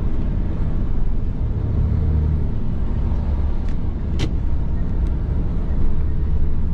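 Steady low rumble of a heavy truck's engine and tyres heard inside the cab while cruising on the highway. A short sharp click comes about four seconds in, with fainter ticks around it.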